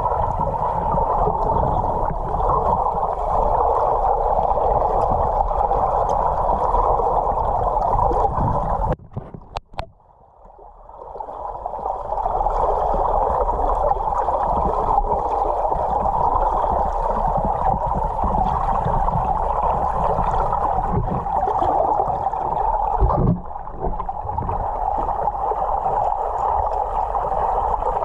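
Steady rushing, gurgling water noise that cuts out for about two seconds around nine seconds in, then returns.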